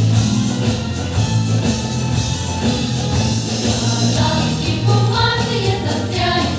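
Pop song performed by a children's vocal ensemble: group singing over band accompaniment with a steady bass and drum beat.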